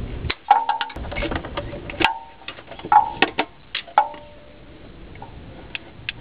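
Metal-on-metal taps and scrapes of a test light's probe tip against the starter motor's positive terminal bolt, probing it for 12 volts; each tap rings briefly. There are many quick taps in the first four seconds and only a couple near the end.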